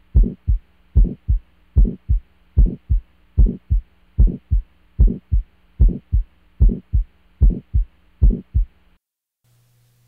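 Stethoscope recording of a heart with aortic stenosis: paired heart sounds beating about 75 times a minute, with a harsh crescendo-decrescendo systolic murmur filling the gap between the first and second sound of each beat, over a steady low hum. The recording stops about a second before the end.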